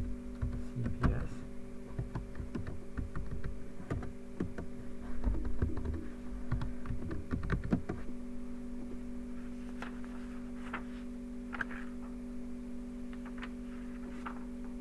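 Typing on a computer keyboard: a quick run of irregular key clicks for the first eight seconds or so, then only a few scattered keystrokes over a steady electrical hum.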